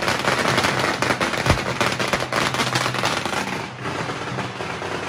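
Chinese string firecrackers going off in a dense, rapid crackle of overlapping bangs, which cuts off suddenly about three and a half seconds in.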